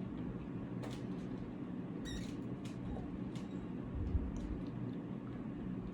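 Quiet indoor room tone: a steady low hum with a few faint small clicks and a brief high squeak about two seconds in.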